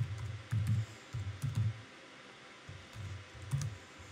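Typing on a computer keyboard: bursts of keystrokes, each with a dull low thump, with a short pause about halfway through.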